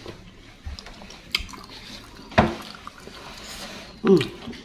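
Wooden spoon and fork working in a ceramic bowl of thick meatball soup: scattered soft knocks against the bowl and broth sloshing, with two brief mouth sounds at a falling pitch, about midway and near the end.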